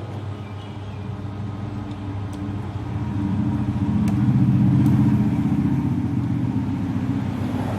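A motor vehicle's engine passing by, swelling to its loudest about halfway through and then fading, over a steady low hum.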